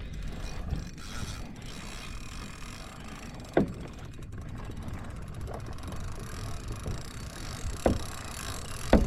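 Kayak being towed through the water by a hooked tarpon: a steady rush of water and wind, with three sharp knocks against the hull about a third of the way in, near the end and at the very end.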